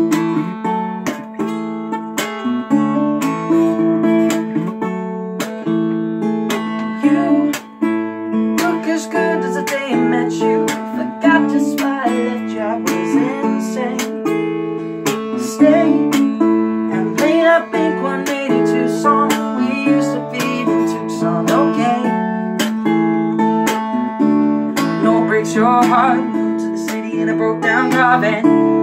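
Acoustic guitar strummed in a steady rhythm, chords ringing on between the strokes.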